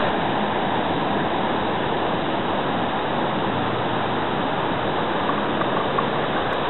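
Whitewater rapids below a dam: water rushing steadily over rocks.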